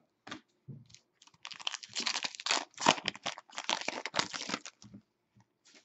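Foil wrapper of a hockey card pack crinkling and tearing as it is ripped open: a dense crackle for about three seconds, starting about a second and a half in, after a few small clicks.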